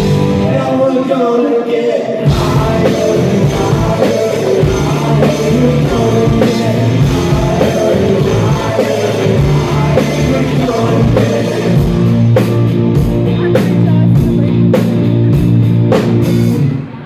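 Live rock band playing loudly with singing and steady drum hits; the music stops abruptly near the end.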